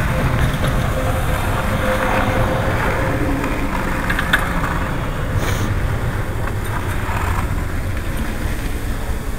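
Steady rumbling, hissing noise of sliding down a snow slope: wind buffeting the microphone and the scrape of snow underfoot, with a few faint clicks.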